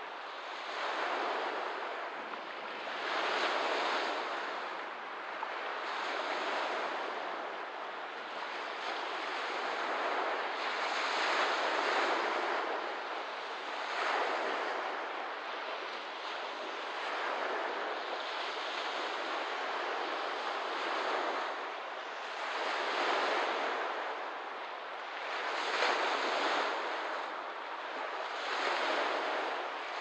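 Small lake waves washing onto the shore, swelling and falling back every two to three seconds.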